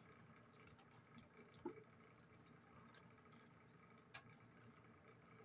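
Near silence with faint eating sounds: quiet chewing and mouth noises, with a couple of small sharp clicks about one and a half and four seconds in.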